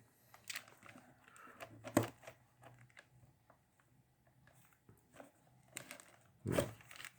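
Faint scattered clicks and plastic handling noises from a DeWalt DW349R jigsaw's trigger switch being pressed, with a sharper click about two seconds in and another near the end. Its lock-on button for continuous use does not pop out, which the owner suspects may be a production fault.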